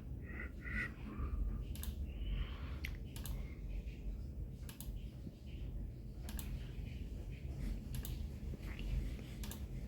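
Scattered light clicks and taps, roughly one a second, with a faint voice in the first second.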